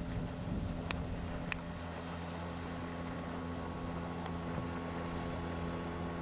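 Boat's outboard motor running at a steady, unchanging speed, with two light clicks about a second in.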